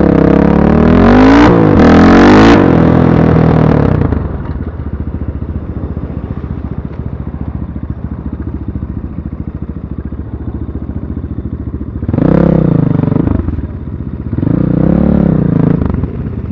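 BSE Z6 enduro motorcycle engine revving, its pitch rising and falling, then dropping to a lower steady run for about eight seconds, with two shorter revs near the end.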